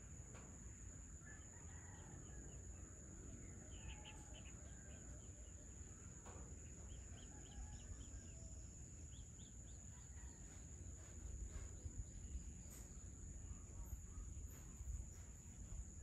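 Faint evening outdoor ambience: birds calling in short runs of quick, high chirps about four and eight seconds in, over a steady high insect drone and a low, steady rumble.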